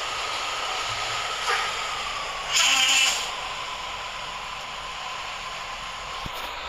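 Hino truck running steadily with a constant whine, and a short loud hiss of air about two and a half seconds in.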